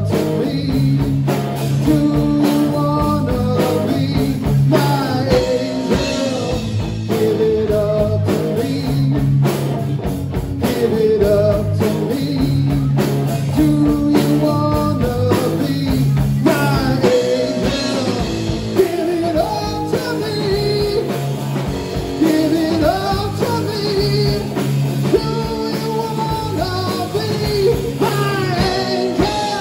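Live rock band playing loud and continuously: electric guitars with gliding, bending lead lines over a steady bass guitar and drum kit.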